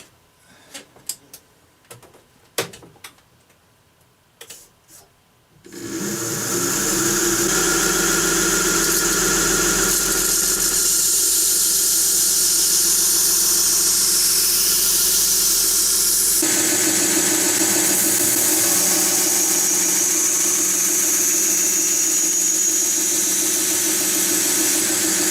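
A few light handling clicks, then about six seconds in a powered sharpening tool starts and runs steadily with a high hiss and squeal as a pocket-knife blade is sharpened on it. Its sound shifts about ten seconds later.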